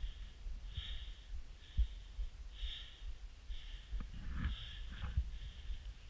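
A person breathing hard close to the microphone, a breath about every second, with low bumps and a few sharp knocks from movement.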